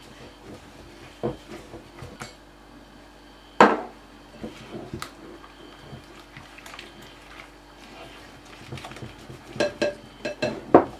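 Soft butter, icing sugar and egg being mixed by a gloved hand in a glass mixing bowl, with the bowl knocking and clinking now and then. The sharpest knock comes about three and a half seconds in, and a run of knocks near the end.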